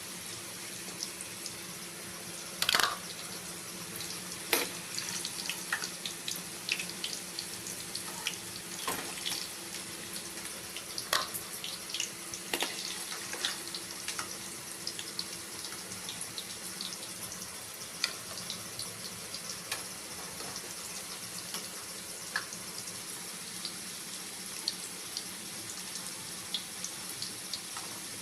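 Hot oil sizzling steadily in a pan with lots of small crackles and pops as potato pieces shallow-fry. A few sharper clicks stand out, the loudest about three seconds in.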